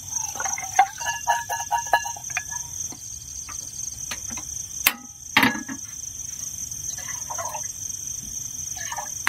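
Night insects such as crickets trilling in a steady high-pitched drone. A short pulsing call sounds in the first couple of seconds, and two sharp clicks come around the middle.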